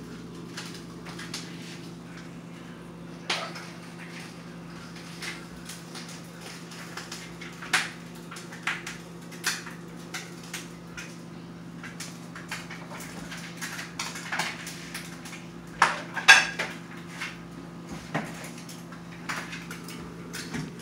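Steady hum of an aquarium air pump driving a sponge filter, with irregular sharp clicks and pops scattered throughout; the loudest come in a cluster about 16 seconds in.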